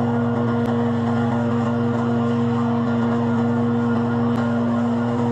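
An engine running at a constant speed, a steady loud drone with a fixed-pitch whine over it that does not rise or fall.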